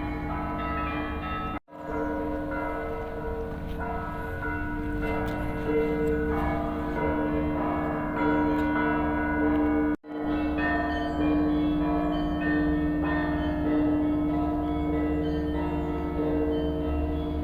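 Orthodox church bells ringing together, several bells of different pitch struck again and again so their tones overlap. The sound drops out abruptly for an instant twice, about two seconds in and about ten seconds in.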